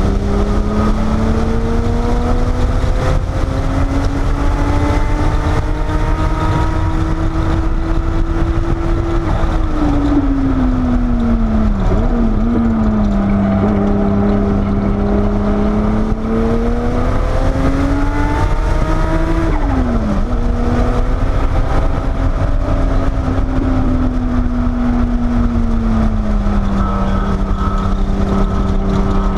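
Porsche 930 Turbo's air-cooled turbocharged flat-six, heard from inside the cabin at speed on track. The revs climb steadily under load, fall away with short throttle blips around ten to twelve seconds in as the car slows for a corner, and climb again. They drop sharply just before twenty seconds and settle lower near the end, under steady road and wind noise.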